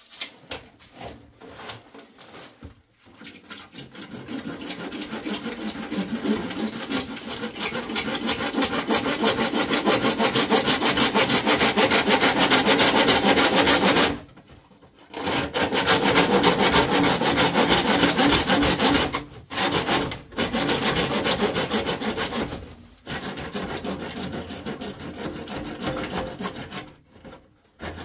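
Hand saw cutting through rigid PVC pipe: fast back-and-forth rasping strokes that build in loudness and stop for about a second halfway through, then go on with a few short breaks until the pipe is cut through near the end.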